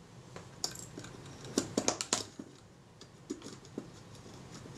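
Faint, scattered clicks and taps of small metal camera parts being handled by fingers: the shutter cocking rack and its bracket being fitted and moved in a Kodak Retina IIIc body. The clicks come in small clusters, about half a second in, around two seconds in and again at about three and a half seconds.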